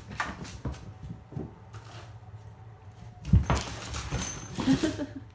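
Bengal kitten scampering and pouncing on a hardwood floor: a run of light knocks and taps, with one heavier thump about three and a half seconds in followed by a short scuffle.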